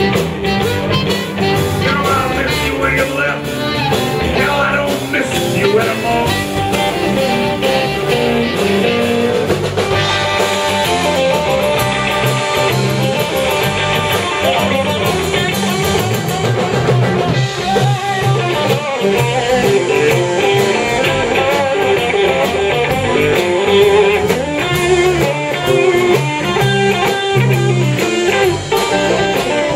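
Live electric blues band playing an instrumental passage: electric guitars over a drum kit, with no vocals.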